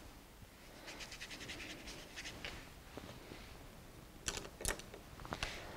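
Faint, quick scratching of a watercolour brush at work, then a few sharp clicks a little past four seconds in as brushes are handled beside the palette.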